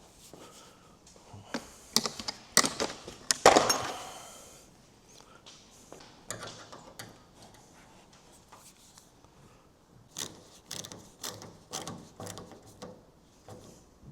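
Metal hardware and hand tools being handled while clamps are bolted on, with knocks and clicks. One loud clank with a ringing tail comes about three and a half seconds in, and a run of lighter clicks and taps follows later.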